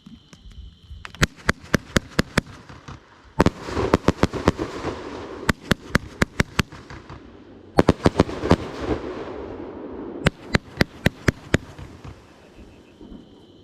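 Fireworks going off: five quick runs of sharp bangs, with crackling between some of them.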